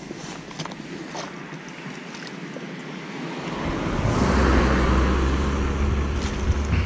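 Wind rumbling on the microphone, building up and growing loud about halfway through, after a few light clicks.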